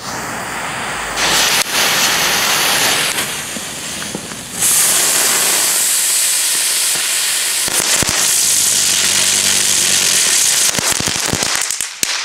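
Small ground firework fountain burning with a continuous loud hiss as it sprays sparks. It grows louder about a second in and again about four and a half seconds in, and a few sharp pops and crackles come near the end as it burns out.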